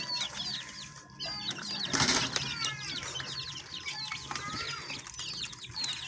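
Many small caged birds chirping constantly, a rapid stream of short downward chirps, with a brief burst of wing-flapping or rustling about two seconds in.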